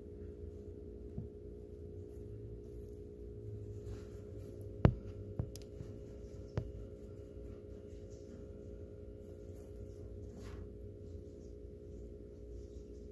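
Steady electrical or mechanical hum of several held tones over a low rumble, with a few sharp clicks or knocks: a faint one about a second in, then a loud one about five seconds in followed by two smaller ones.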